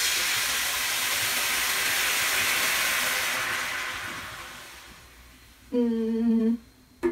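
Water poured from a plastic tumbler into a pot of broth: a steady splashing pour that tapers off and stops about five seconds in. Around six seconds in, a short hummed tone from a person's voice.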